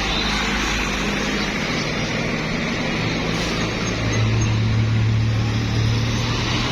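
Large bus's diesel engine running, a steady low hum that grows louder about four seconds in.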